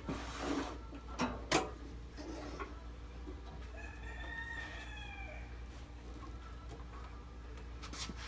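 A rooster crowing once, a single drawn-out call starting about four seconds in. A few sharp knocks come before it, the loudest about a second and a half in.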